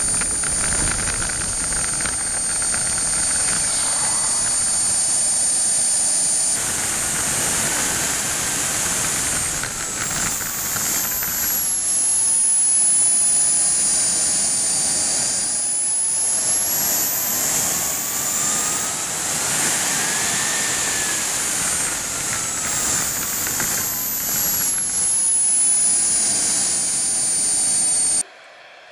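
Engine of a radio-controlled model jet heard close from a camera on board, a very high whine with a hiss, its pitch falling and rising several times as the throttle changes while the model taxis. The sound cuts off abruptly about a second before the end.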